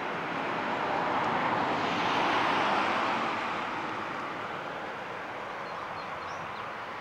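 A car passing on the highway: road and tyre noise swells to a peak about two to three seconds in, then fades back into a steady background rush.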